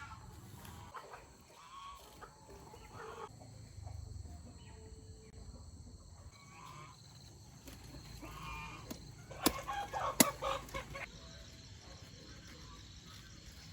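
Chickens clucking and calling, loudest about two-thirds of the way in, with two sharp knocks among the calls.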